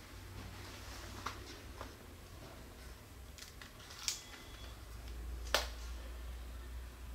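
Quiet indoor room tone with a steady low hum and a few scattered light clicks and taps, the sharpest about five and a half seconds in.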